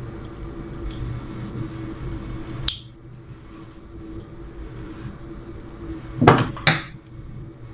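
Plastic light switch being handled against a plastic junction box while it is wired: a sharp click a little under three seconds in, then two knocks in quick succession near the end, over a steady low hum.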